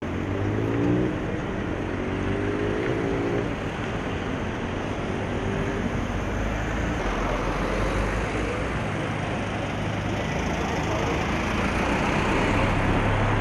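Steady road traffic: cars and a bus driving past. In the first few seconds one engine's note rises as it accelerates.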